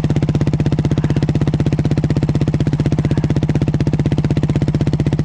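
Dirt bike engine running steadily, an even train of firing pulses that holds one speed throughout.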